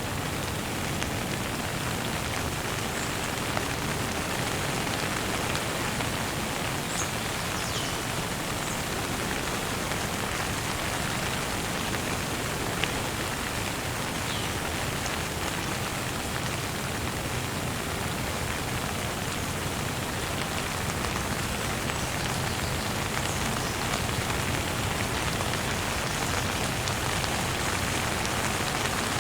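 Light rain falling steadily: an even hiss of drops on surfaces, with a few faint, short high chirps scattered through it.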